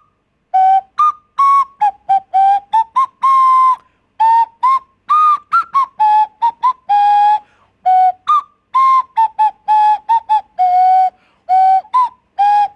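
Plastic nose flute (a Humanatone), blown through the nose while the open mouth shapes the pitch. It plays a whistling tune of mostly short, detached notes with a few longer held ones, the pitch stepping up and down.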